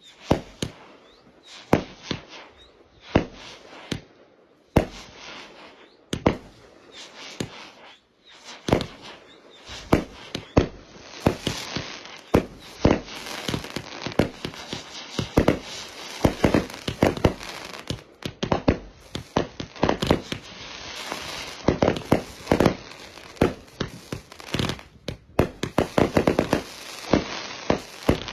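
Fireworks going off: sharp bangs roughly a second apart at first, then from about nine seconds in a dense, rapid run of crackling pops.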